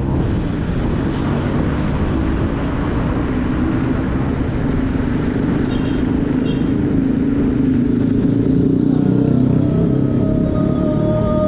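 Continuous road noise of tyres rolling on a paved road, with motor-vehicle engines passing. Near the end a vehicle's engine pitch rises and holds.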